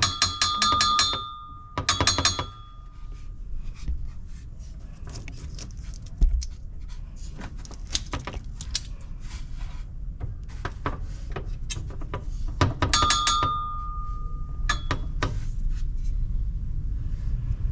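Loose metal handbrake-cable tube under a BMW 320i being struck, ringing like a bell in four short bursts: two at the start and two more late on, with light clicks and knocks between. It rings because the plastic support that held it has broken, the cause of the metallic bell-like clang over speed bumps.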